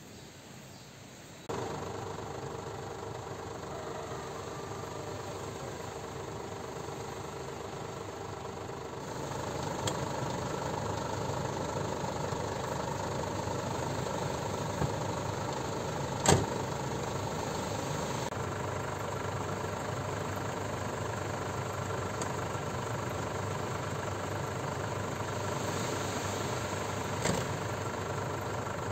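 Ford Everest SUV engine starting about a second and a half in, then idling steadily. A single sharp knock comes about halfway through.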